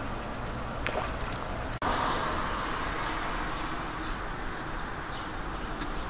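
Steady outdoor background noise, cut off for an instant a little under two seconds in, with a short high call about a second in and a few faint high peeps later, typical of ducklings.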